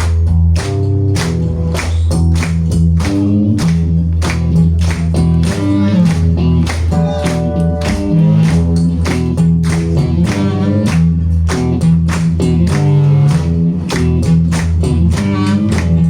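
Live band playing the instrumental introduction to a song: a regular beat of about three strokes a second over a steady bass line and a melody.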